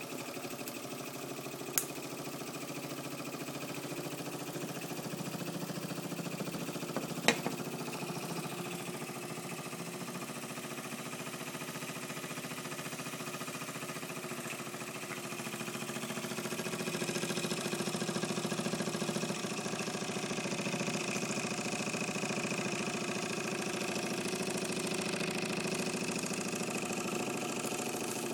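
Mamod SE2 toy steam engine running steadily with a fast even mechanical beat, growing louder about halfway through; two sharp clicks, one about two seconds in and a louder one about seven seconds in.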